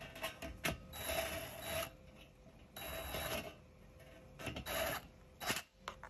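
Cordless drill/driver turning the screws of a dishwasher's lower kick panel in three short runs, with sharp clicks between them.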